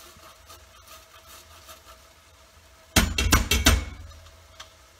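Fresh ginger grated faintly on a metal box grater, then, about three seconds in, a quick run of five or six loud metal knocks as the grater is rapped against the rim of the stainless sauté pan to shake the ginger off.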